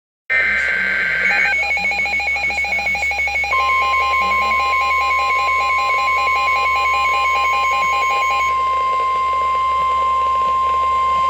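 Emergency Alert System tones on NOAA Weather Radio. A short screeching two-tone burst of digital SAME header data ends about a second in. A fast pulsing electronic beep pattern runs for several seconds, and about three seconds in the steady 1050 Hz warning alarm tone starts and holds, signalling a warning about to be read.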